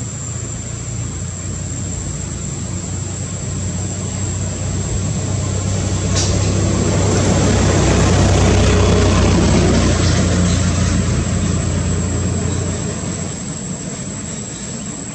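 A distant engine droning, growing louder to a peak past the middle and then fading away, as of a plane passing over. A steady high-pitched whine runs underneath.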